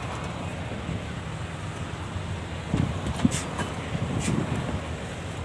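Six-tyre lorry's engine running at low speed, heard from inside the cab, as it crawls along a rough dirt track. A few knocks and rattles come from about three seconds in.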